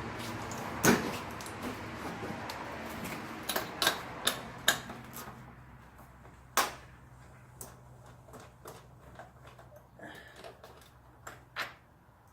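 Irregular sharp clicks and light metallic knocks from tools and parts being handled in an engine bay, as a nut is taken off a stud and a catch-can bracket is fitted. The clicks come in a quick cluster about four seconds in, then thin out and grow fainter.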